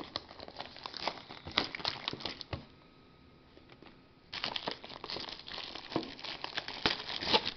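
Clear plastic shrink wrap being torn and peeled off a sealed trading card box, crinkling and crackling. It goes quieter for about a second and a half midway, then crinkles densely again.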